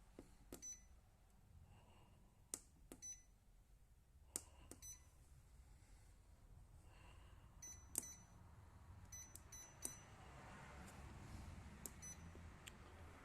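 Keys on a Hammer treadmill console pressed one after another, each a faint click, many followed by a short high beep as the key registers. This is a test of the keypad after a repair of its right-hand keys.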